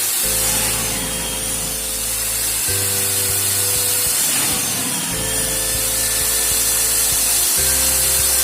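Background music with a steady bass line that changes chord about every two and a half seconds, over the hissing, rubbing noise of a power tool working wood.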